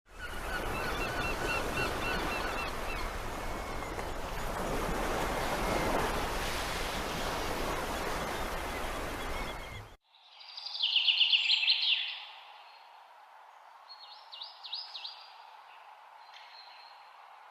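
Steady rushing noise with a few faint high chirps for about ten seconds. Then, after a sudden cut, a Taiwan blue magpie gives a loud, rapid run of harsh notes, followed a couple of seconds later by a few shorter calls.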